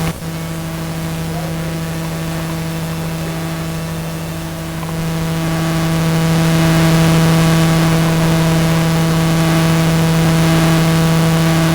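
A steady, constant-pitched hum with overtones over a hiss, growing a little louder about halfway through.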